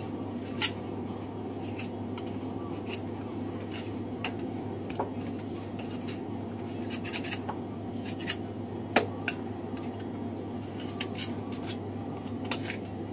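Boning knife clicking and scraping against bone as a lamb shoulder is taken off the bone: irregular sharp clicks, the loudest about nine seconds in, over a steady low hum.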